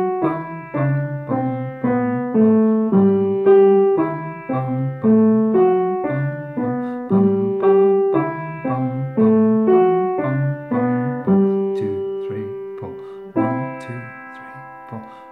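Piano playing a simple bell-peal tune that passes between the right and left hand in a steady, even rhythm. Near the end a final chord is held and left to fade: the tied last notes, D in the right hand and B in the left.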